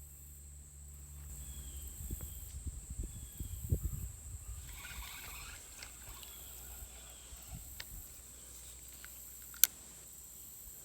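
Steady high insect drone from the creekside, with low knocks and rustling of handling about two to four seconds in and one sharp click near the end.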